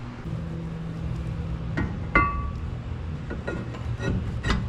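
Metal parts and tools knocking and clinking during a rear brake rotor swap: five or six sharp knocks in the second half, the loudest, just after two seconds in, ringing briefly like struck metal. A low steady hum runs under the first couple of seconds.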